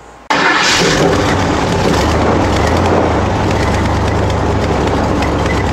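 Airboat engine and propeller running loud, with a steady low drone and wind buffeting the microphone; it starts abruptly a fraction of a second in.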